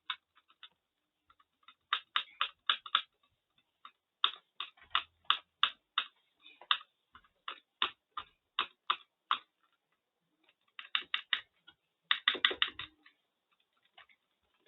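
Sharp computer clicks in bursts: a short run, then about fifteen clicks at roughly three a second through the middle, and two quick, dense flurries near the end.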